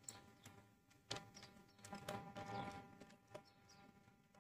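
Faint handling noises of wiring being worked at a miniature circuit breaker's terminals: a few sharp clicks and some soft rustling, over a faint steady tone.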